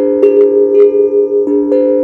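HAPI steel tongue drum, tuned to a pentatonic scale, played by hand: notes struck a few times a second, each ringing on and blending with the next.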